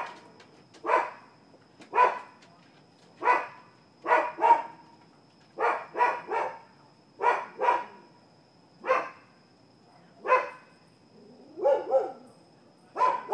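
Dogs barking repeatedly: short, sharp barks, single or in quick pairs and triples, about once a second.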